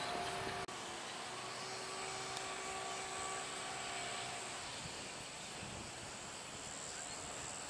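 Outdoor ambience with a faint, steady drone from a distant engine, over a hiss of background noise. There is a brief dropout in the sound about half a second in.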